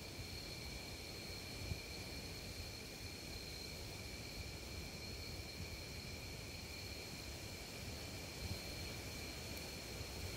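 Insects trilling steadily in two unbroken high tones, over a low rumble of wind on the microphone, with a soft bump near the start.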